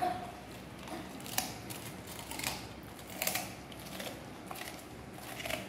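A Doberman chewing raw cabbage leaves: a handful of crisp crunches, irregularly spaced about a second apart.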